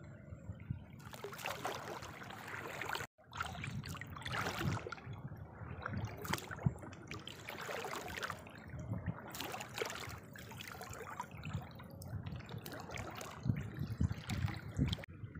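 Shallow water sloshing and trickling with irregular small splashes as a gill net with caught fish is handled in it. A brief break about three seconds in.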